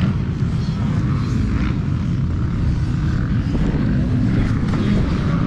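2021 Yamaha YZ250 single-cylinder two-stroke with a Scalvini exhaust pipe, running steadily at idle.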